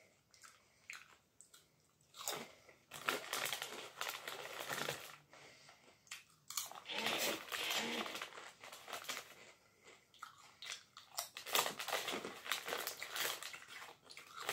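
Close-up crunching and chewing of ridge-cut potato crisps, in three bouts of a few seconds each with short pauses between.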